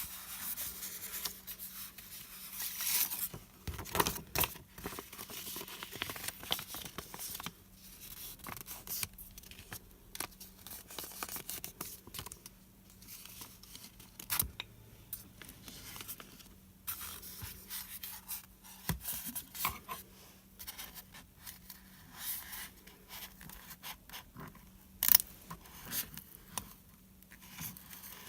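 Scissors cutting into packaging while the wrapping and box are handled: irregular scraping, tearing and scratching, with many small clicks and taps and one sharper click near the end.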